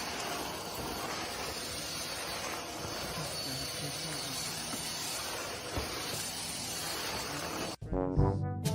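A steady hiss of even noise that cuts off suddenly near the end, when brass music starts.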